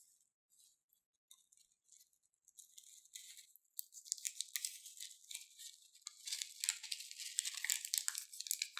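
Slime being squeezed and worked by hand, with a dense crackle of many small clicks and pops. It is sparse at first and grows louder and busier from about four seconds in.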